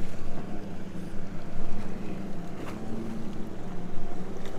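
A steady low boat-motor hum, with wind gusting on the microphone and water noise around the boat.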